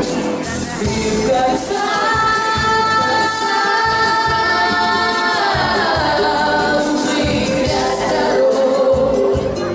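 Girls' voices singing a pop song over a backing track. They hold one long note for several seconds, then slide it down in pitch about halfway through.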